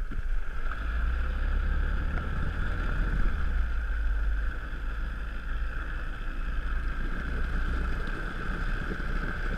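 Speedboat's outboard motor running steadily, a low rumble with a steady whine above it, and wind buffeting the microphone.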